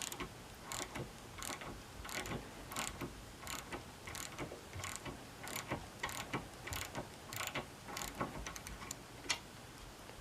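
Proto 4749 quarter-inch drive ratchet clicking in short runs as its handle is swung back and forth to loosen a nylock nut, the pawl ratcheting on the return strokes.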